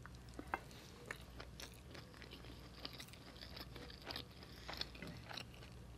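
Close-miked chewing of a hand-fed mouthful of biryani rice: faint, scattered mouth clicks and smacks.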